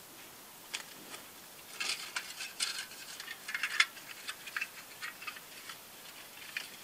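Irregular small clinks and taps of camp cookware being handled and set on a small stove, a quick scatter of sharp clicks that is busiest in the middle.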